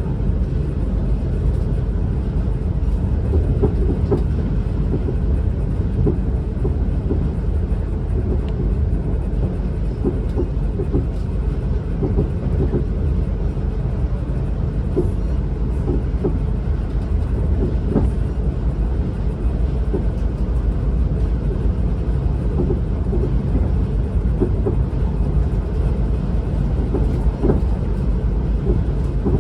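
Ride noise inside a Class 444 Siemens Desiro electric multiple unit on the move: a steady low rumble of wheels on rail, with frequent short faint clicks scattered through it.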